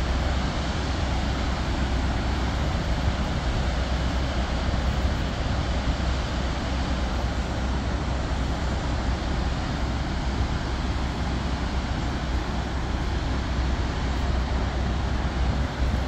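Steady roar of the Great Falls of the Passaic River in high, storm-swollen flow, with a deep low rumble beneath the rushing water.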